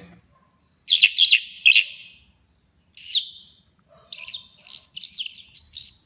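Song thrush song played back through an electronic bird caller's speaker. There are three phrases of high chirping notes with short pauses between them; the first comes about a second in and the last phrase is quieter.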